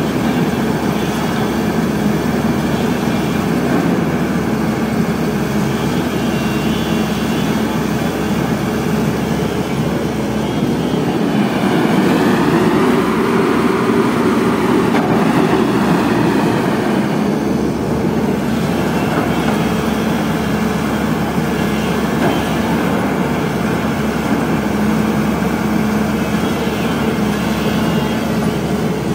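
Caterpillar 320D hydraulic excavator's six-cylinder diesel engine running steadily under working load while the excavator digs, swelling somewhat louder for a few seconds around the middle.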